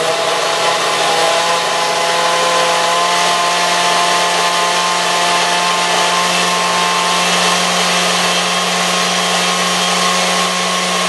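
Stainless-steel countertop blender running steadily on its second speed, blending a thick yogurt-and-fruit smoothie. The motor hum holds an even pitch throughout.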